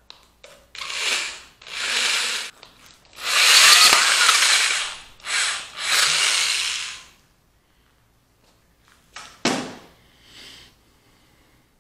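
Electric drill grinding holes through the glass base of a whiskey bottle, with water as the cutting coolant, in several bursts of a second or two, the longest near the middle. A single short knock follows a couple of seconds after the drilling stops.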